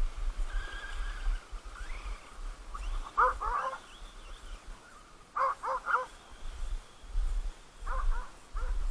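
Dogs barking in three quick runs of three or four short barks, under an uneven low rumble.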